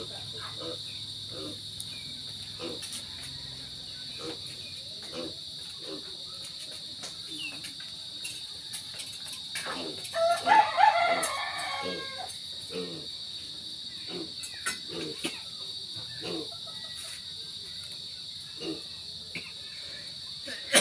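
A rooster crowing once, about halfway through, over a steady high-pitched drone of crickets or other insects, with scattered light clicks.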